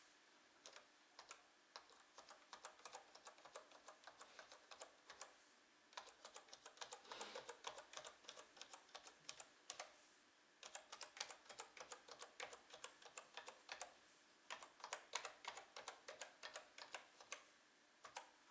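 Typing on the keyboard of a SunRace HyperBook 1000 laptop: faint, quick runs of key clicks, broken by short pauses about five, ten and fourteen seconds in.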